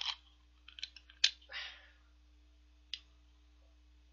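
Metal twist-off cap of a glass soju bottle being twisted open: a few sharp clicks as the seal breaks, a short scrape, then one more click.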